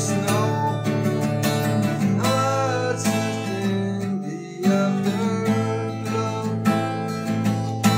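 Höfner acoustic guitar strummed and picked in an instrumental passage, chords ringing with a few notes that slide in pitch. The playing briefly drops away about four seconds in before the strumming comes back in.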